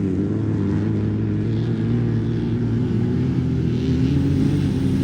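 Off-road race car engine running steadily.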